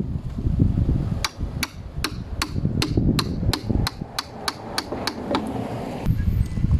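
Hammer tapping a chisel to chop out a deadbolt mortise in the wooden door edge: about fifteen sharp taps that come faster as they go.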